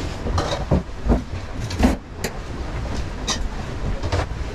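Bowls, cups and utensils knocking and clinking as they are handled on a sailboat's galley counter, about half a dozen separate knocks. Under them runs the steady low rumble of the yacht's hull working through choppy water.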